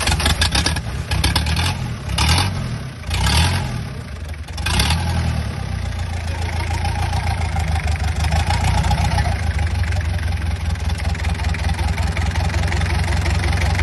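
Mitsubishi 4DR5 four-cylinder diesel engine running, its speed surging and dropping several times in the first five seconds, then settling into a steady run.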